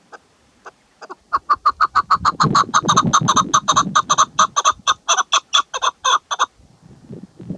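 Chukar partridge, which the title gives as a female, calling in a rapid run of short repeated notes, about five a second. The run starts about a second in and stops suddenly near the end.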